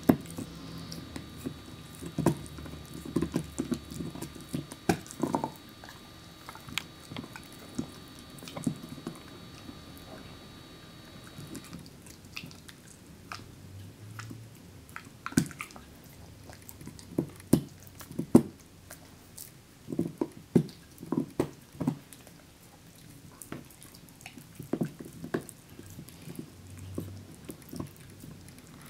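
Mixed-breed dog gnawing an orange ridged dental chew bone: irregular clicks and crunches of teeth on the chew, coming in clusters with short pauses between.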